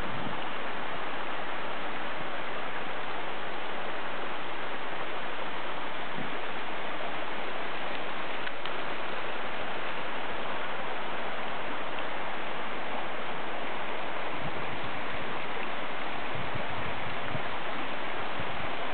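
Waterfall on a mountain stream: a steady, even rush of falling water.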